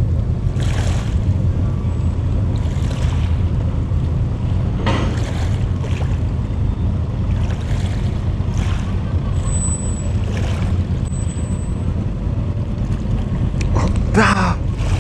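A steady low rumble with several brief whooshes every second or two.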